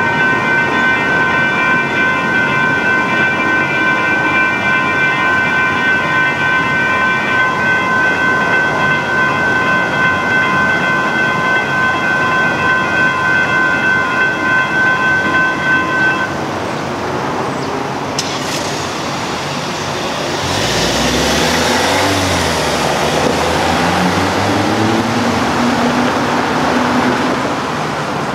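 Railroad crossing warning bells ringing in a steady, pulsing clang, cutting off about two-thirds of the way through. Road traffic then starts moving: a vehicle engine rises in pitch as it accelerates away, over a hiss of traffic.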